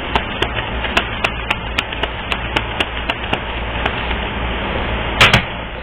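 Tarot cards being shuffled: irregular sharp flicks and taps, a few each second, over a steady hiss, with a louder double knock about five seconds in.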